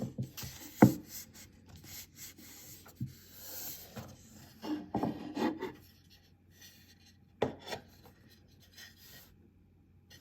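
Handling noise from a keyboard wrist rest and its packaging: rubbing and sliding with several sharp knocks, the loudest about a second in and another at about seven and a half seconds.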